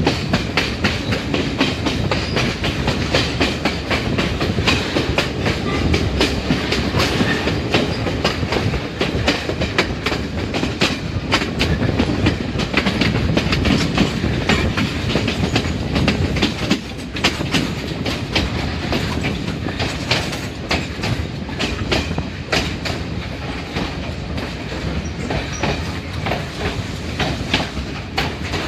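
Passenger train on the Kelani Valley Line running along the track, heard from aboard: a steady rumble with dense clicking of wheels over the rails throughout.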